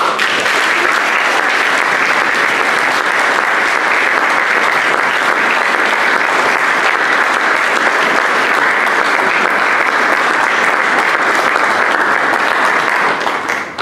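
Audience applauding, a dense steady clapping that starts abruptly and dies away near the end.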